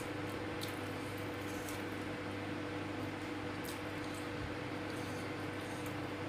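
Eating with the fingers: faint wet clicks and squishes of chewing and of fingers picking at food, a few times, over a steady room hum.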